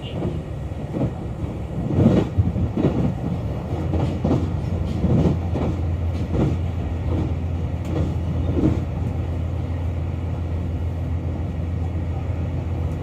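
KiHa 261 series diesel express train heard from inside the car: the wheels clack over rail joints while a steady low engine drone runs underneath. The clacks thin out after about nine seconds, leaving the drone.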